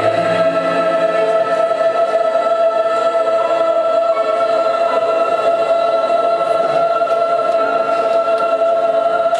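Large middle-school chorus of mixed young voices holding one long, steady chord, the song's final sustained note.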